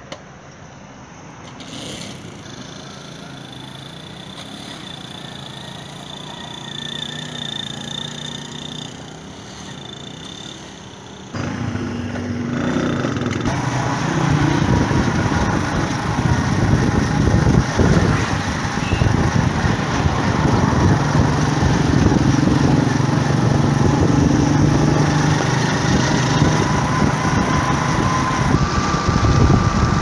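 A small vehicle engine runs steadily. At first it is fairly quiet, with a thin high whine over it. About eleven seconds in, the sound jumps to a louder, dense run of engine, wind and road noise, as from a moving vehicle.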